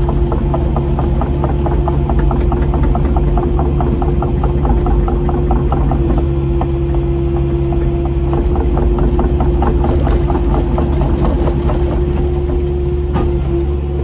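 Kubota KX080 excavator's diesel engine running steadily under hydraulic load, heard from inside the cab, with a steady hydraulic whine and a fast, even ticking over it while the tilt rotator and grapple swing a tree.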